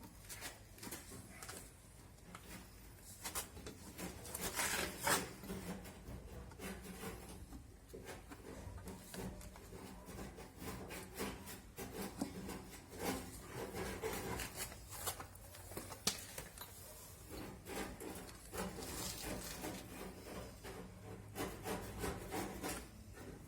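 Irregular rubbing and scraping with scattered light knocks: hands working sealant around the rim of a washing machine's plastic tub, over a faint steady low hum.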